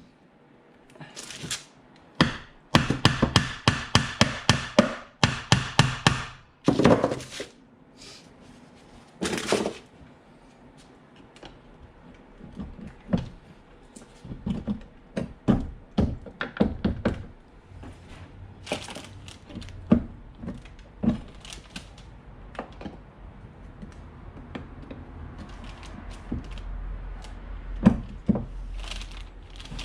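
Clanks, taps and knocks of Honda B16 transmission parts being handled and set down, scattered throughout. A quick run of ringing metal strikes a few seconds in.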